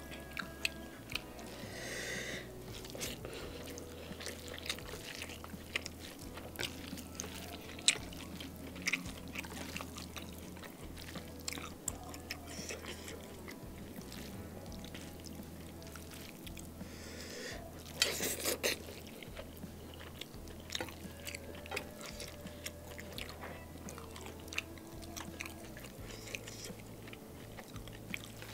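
Close-miked chewing of a hand-fed mouthful of rice and beef, with frequent wet mouth clicks and lip smacks. A brief, louder burst of noise comes about two-thirds of the way through.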